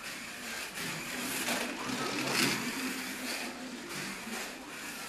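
A 1:32 slot car, a Fly Porsche 911 on a sprung-pod racing chassis driven by a green-can Avant boxer motor, running laps on a slot car track: a whirring electric motor and guide braid noise that swells and fades as the car speeds down the straights and slows for the corners.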